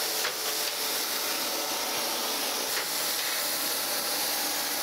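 Surface grinder running, its wheel grinding a long straight edge on a light one-tenth finish pass as the table is moved back and forth: a steady hiss.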